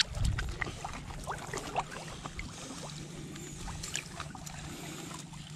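Shallow water sloshing and dribbling, with scattered small clicks and splashes in the first half, settling into a quieter steady wash with a faint low hum.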